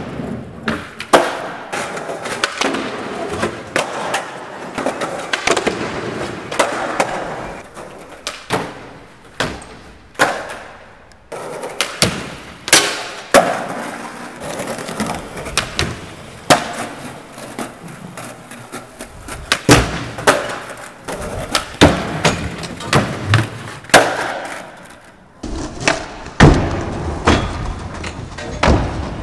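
Skateboard wheels rolling over a smooth hard floor in a tiled underpass, broken by many sharp clacks of the board popping and landing on tricks.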